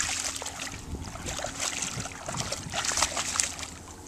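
A Weimaraner's legs splashing as it wades through shallow lake water: a run of irregular splashes and sloshes that thin out near the end.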